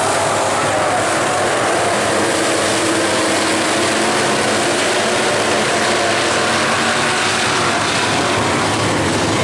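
A field of IMCA Northern SportMod V8 dirt-track race cars running at speed together. Their engines are loud and steady, with several overlapping pitches that shift as the cars go through the turns.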